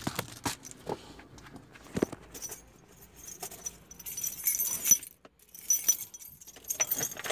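A few light knocks, then a bunch of keys jangling and clinking twice, about four and six seconds in.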